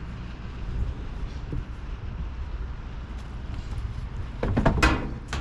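Low steady rumble of a vehicle engine running, with a short, louder noisy burst about four and a half seconds in.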